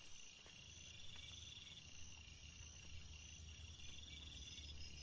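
Near silence with faint night insects chirring, a thin, high, pulsing trill.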